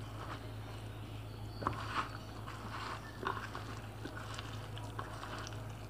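A hand squishing and kneading wet gram-flour batter with sliced potato and onion in a plastic bowl: faint squelches and crunches, with a few sharper clicks about two and three seconds in. A steady low hum sits underneath.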